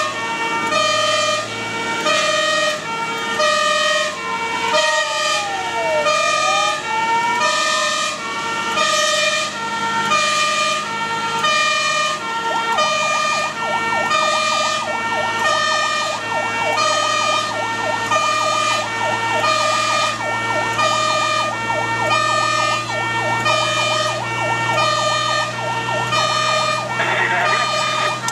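Magirus-Deutz fire engine running on emergency call with its sirens on, heard from inside the cab. A two-tone hi-lo horn alternates about once a second throughout. Over it, a siren wails slowly up and down twice, then switches about 12 seconds in to a fast yelp, with the truck's diesel engine droning underneath.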